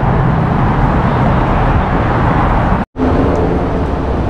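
Steady road traffic noise, loud and even, breaking off for an instant about three seconds in before it resumes.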